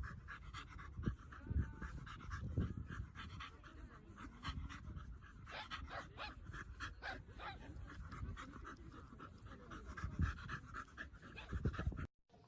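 A dog panting rapidly in quick, even breaths, with a few dull low bumps along the way.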